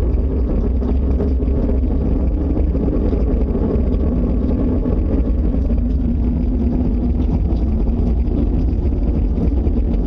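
Steady, loud low rumbling drone with a humming tone in it, of unknown source: one of the 2011 'strange sky sounds' heard coming from the sky with nothing in view to make it.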